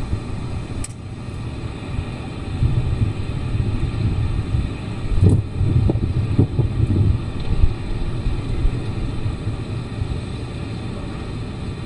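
Snowstorm wind buffeting the microphone: a low rumble that swells and eases in gusts.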